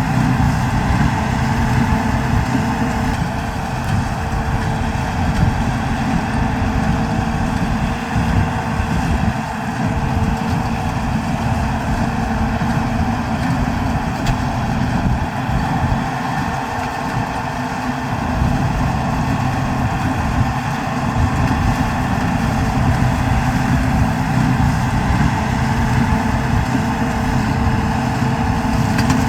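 New Holland TD110D tractor's diesel engine running steadily at an even speed.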